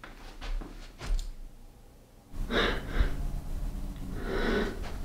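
A person breathing hard and gasping in fright. Soft breaths come first, then two louder breaths in the second half, with low thuds underneath.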